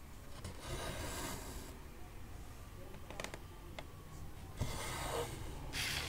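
Cotton embroidery thread being drawn through 14-count Aida cross-stitch fabric: three short swishes of thread pulled through the cloth, with a few light ticks between them.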